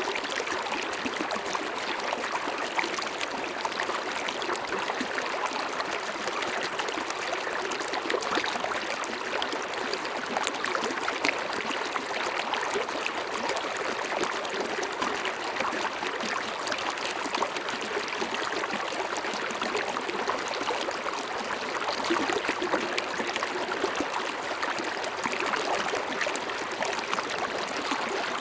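River water running over rocks: a steady rushing and babbling that stays even throughout.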